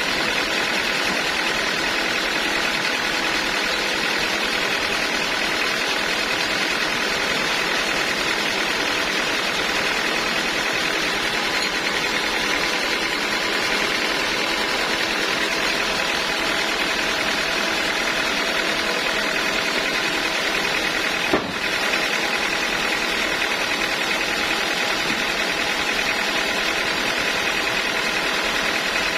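Sawmill machinery running steadily, a constant mechanical hum with several steady tones. One brief knock about three-quarters of the way through.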